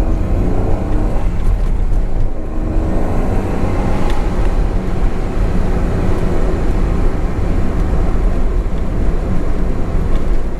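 Honda S660's small three-cylinder engine and tyre noise at expressway speed, a steady low rumble heard inside the car. The engine note glides up and down in the first couple of seconds.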